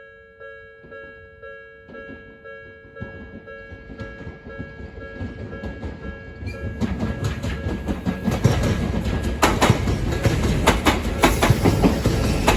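Japanese level-crossing warning bell ringing in a steady electronic ding about twice a second. From about seven seconds in a train closes in and passes over the crossing, growing louder with rumbling and wheels clacking over the rail joints until it drowns out the bell.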